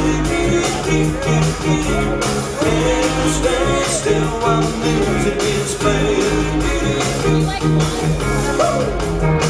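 A live rock band playing: electric guitar, bass guitar and drums with a steady pulsing bass line, and a woman singing.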